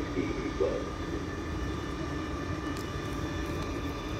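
A vehicle's steady running hum: a low rumble under several steady whining tones, with nothing sudden.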